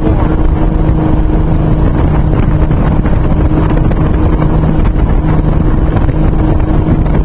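Tow boat's engine running steadily at speed, a constant low hum, under heavy wind noise on the microphone and rushing water from the wake.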